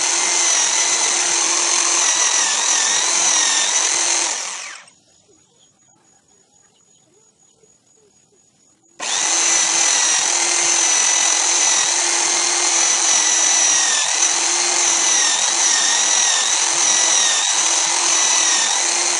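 Electric drill used as a homemade wood lathe, running at speed and spinning a wooden workpiece. Its whine dips slightly in pitch now and then as sandpaper is pressed to the wood. It winds down about four and a half seconds in, stays off for about four seconds, then starts again abruptly and runs.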